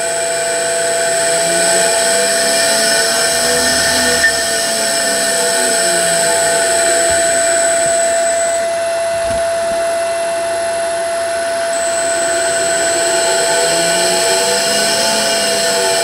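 Three-phase electric motor running on a Delta VFD-E variable-frequency drive: a steady electric whine with a high tone held throughout, and fainter tones that slowly rise and fall twice.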